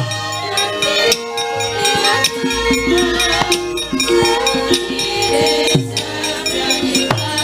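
Javanese gamelan ensemble playing wayang kulit accompaniment: sustained metallophone notes over kendhang drum strokes that fall in pitch, with the sharp clatter of the dalang's keprak metal plates. A deep low tone sets in about two and a half seconds in.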